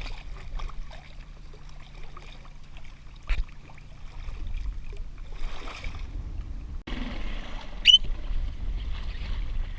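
Water lapping and sloshing against a fishing kayak with low wind rumble and scattered small knocks, one louder knock a little over three seconds in. A short, sharp rising squeak about eight seconds in.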